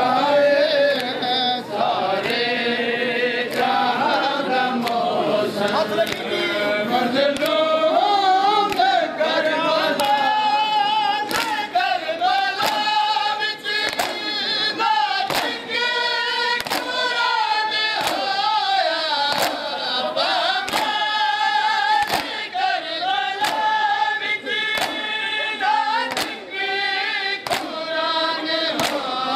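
Men chanting a noha in chorus, with bare-chested mourners doing matam: open hands slapping chests in unison, a sharp beat about three times every two seconds.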